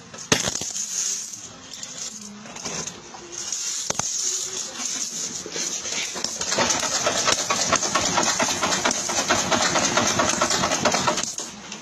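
Loose metal coins clinking and rattling against each other, a few single clicks at first, then a dense, continuous jingle of many coins moving at once from about six and a half seconds in until just before the end.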